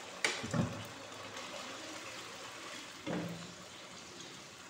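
Vinegar and soy sauce poured into a hot non-stick wok of frying chicken pieces, the liquid bubbling quietly in the pan while a wooden spatula stirs it, with a few short knocks.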